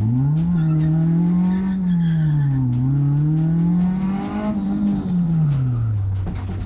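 Car engine pulling hard as the car is driven flat out on a race course: the revs climb sharply at the start, dip about halfway through, climb again and drop near the end as the driver works the throttle through the corners.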